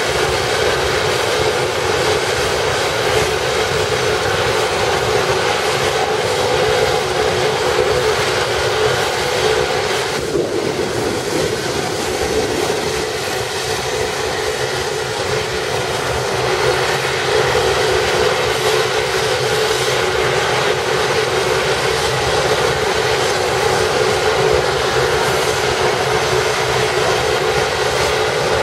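AgustaWestland AW139 helicopter's twin turboshaft engines and rotors running steadily on the ground, a continuous turbine whine over the rotor noise. It eases slightly about halfway through.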